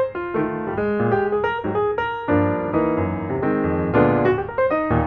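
Background piano music, a run of notes played one after another.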